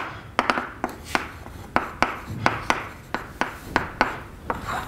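Chalk writing on a blackboard: an irregular string of sharp taps, several a second, as the chalk strikes the slate, with short scratching strokes between them.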